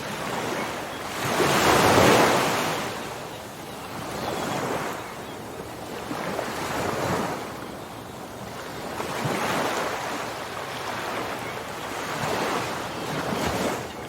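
Ocean waves breaking and washing in, one after another. The biggest surge comes about two seconds in, and smaller ones follow every two to three seconds.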